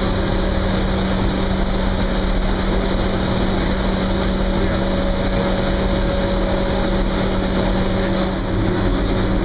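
Hospital boiler room machinery running: a loud, steady roar with a constant low hum and a fainter high whine running through it.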